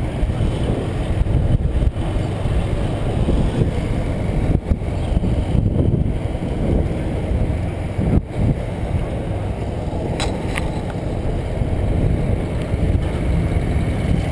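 Boda boda motorcycle taxi riding along, its engine running steadily under heavy wind and road noise on the microphone.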